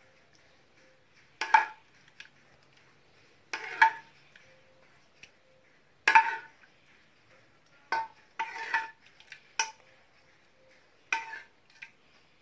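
A spoon clinking against a bowl as syrup is scooped out and spooned over a baked basbousa in its pan: a sharp clink with a short ring about every two seconds, several close together about eight to nine seconds in.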